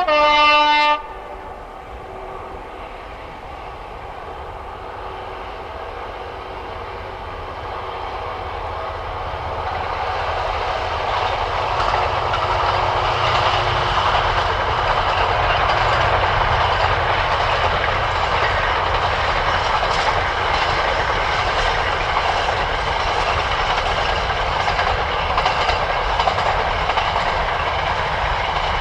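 A GBRf Class 66 diesel locomotive sounds a short horn blast about a second long, then its intermodal container train passes: a rumble that swells over a few seconds and holds steady, with a continuous run of wheel clicks as the container wagons roll by.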